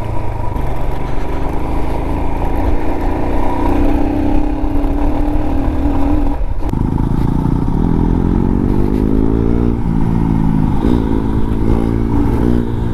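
Royal Enfield Himalayan's single-cylinder engine running as the bike is ridden, with wind on the microphone. From about seven seconds in, a motorcycle engine note climbs in pitch several times as it accelerates.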